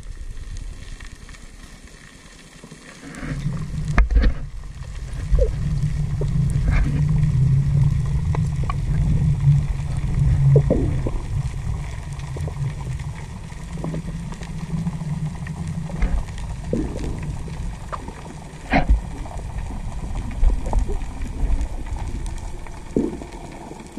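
Sound recorded underwater by a camera: a low, muffled rumble of water moving past the housing as the freediver swims, rising about three seconds in, with scattered sharp clicks and knocks.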